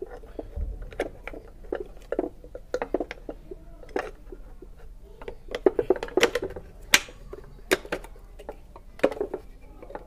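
Irregular metallic clicks and knocks of a Bajaj Platina's brake shoes and return springs being handled and pressed into place on the front drum-brake plate. The sharpest clicks come about six and seven seconds in.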